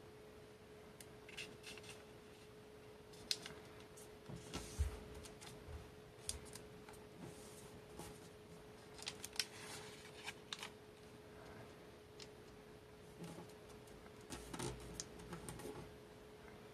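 Origami paper being folded and creased by hand: soft, irregular rustles, crinkles and small taps as the paper slides and is pressed flat against the tabletop. A faint steady tone runs underneath.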